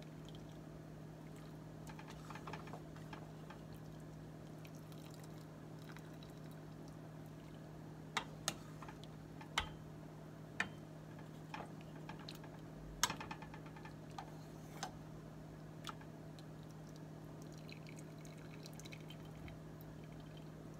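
Wooden spoon stirring and lifting soup in a stainless steel pot: liquid dripping and sloshing, with a series of sharp taps of the spoon against the pot through the middle, over a steady low hum.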